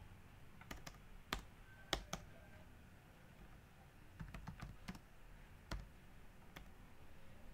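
Computer keyboard typing: irregular single keystrokes, the loudest about one and a half and two seconds in, with a quicker run of keystrokes between four and five seconds in.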